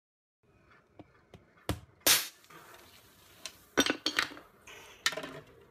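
Aerosol cans struck with a hammer and bursting, spraying foam: a few light ticks, then one loud bang with a hiss about two seconds in and more sharp bursts near four and five seconds.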